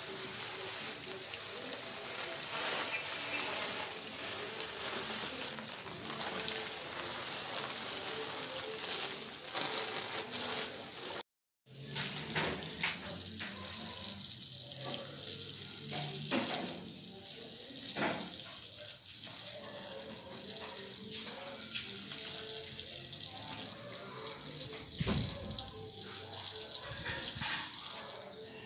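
Water spraying from a garden hose onto bare soil and plants: a steady hiss, cut off by a brief silence about eleven seconds in and then resuming.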